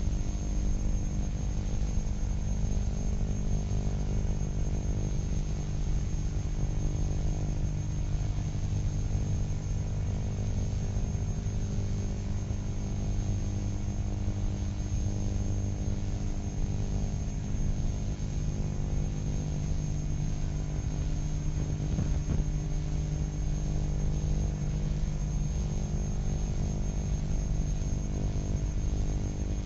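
Steady electrical hum and buzz on the soundtrack: a low drone of many even tones that does not change, with a faint high whistle tone above it.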